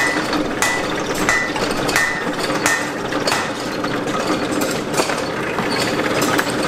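Hand-powered forge blower being worked steadily, forcing air into a freshly lit coal fire: a steady rush of air and fire with a mechanical click repeating about every two-thirds of a second.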